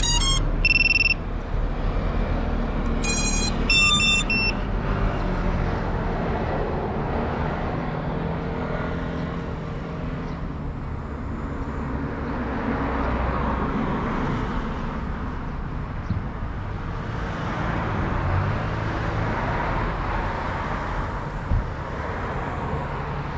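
Two quick runs of short electronic beeps near the start, then the steady rumble and hiss of road traffic and wind, swelling twice as vehicles pass.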